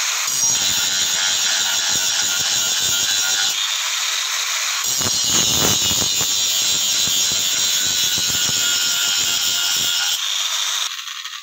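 Handheld electric angle grinder with an abrasive disc grinding a steel mandau blade: a steady high whine and grinding scrape, with a short break in the grinding near the middle, stopping near the end.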